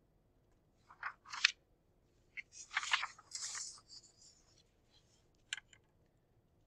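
Sheet of paper being shifted and laid flat, rustling and crackling in a few short bursts, the longest lasting about a second and a half from about two and a half seconds in, with one last brief crackle near the end.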